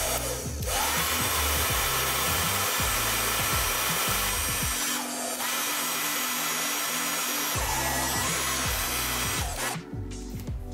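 Heat gun blowing hot air onto heat-shrink tubing over scooter wire connectors: a steady rushing noise that stops shortly before the end. Background music plays underneath.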